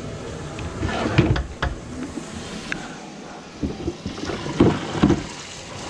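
Handling noise from work under a kitchen sink: a plastic bucket and drain pipes being moved, giving a few clicks and knocks over a low rubbing rumble on the microphone.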